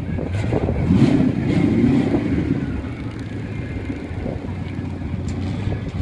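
Twin-turbo C6 Corvette V8 idling, revved once about a second in, its pitch rising and then dropping back to idle.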